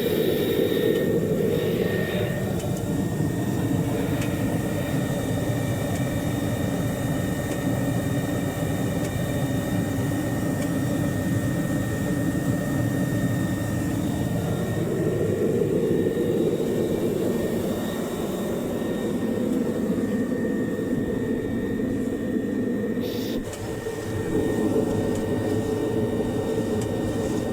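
Valdor 8000 core drilling rig's engine running steadily under power, with a thin high whine on top of the engine noise. The level dips briefly about three-quarters of the way through, then comes back.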